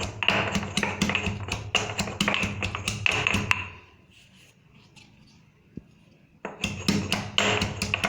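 Fresh ginger being pounded with a pestle in a mortar: quick sharp knocks, about three or four a second, that stop for about three seconds midway and then start again.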